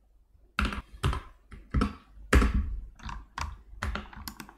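Computer keyboard keystrokes: a string of about a dozen irregular key presses starting about half a second in, entering a dimension value.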